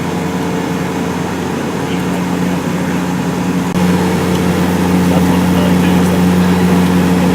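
Steady engine drone heard from inside a vehicle's cabin, a low hum over a rushing noise, growing louder about four seconds in.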